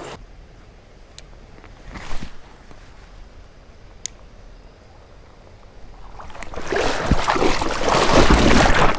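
A person slipping on a smooth creek rock and falling into shallow water: a loud rush of splashing and thrashing with heavy thuds builds from about six seconds in. Before it, only the creek's quiet running water and a few sharp clicks.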